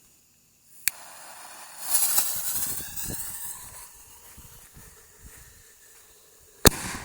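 A lit fuse on a consumer firework shell in its mortar tube hissing for several seconds, louder for a moment and then fading, after a short click at the start. Near the end a single sharp bang, as the shell lifts out of the tube.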